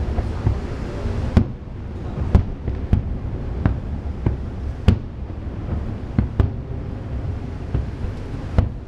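Aerial fireworks shells bursting: irregular sharp bangs about once a second over a continuous low rumble of further explosions.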